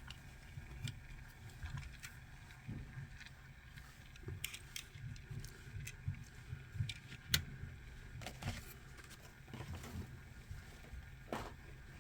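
Handling noise from a small diecast model car being turned over in the hand: scattered light clicks and taps over a low rumble, the sharpest click about seven seconds in.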